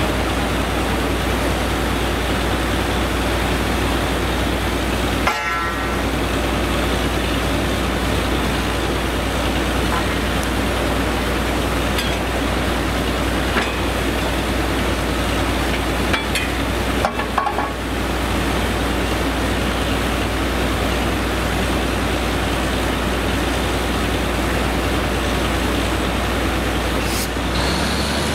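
Truck-mounted borewell drilling rig with its ELGi air compressor running under load while drilling, a steady, loud mechanical noise with a deep hum underneath. It dips briefly twice.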